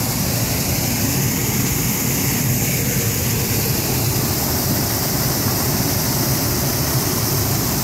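Water pouring through a wooden dam spillway and crashing into the pool below: a steady, loud rush with a deep rumble underneath.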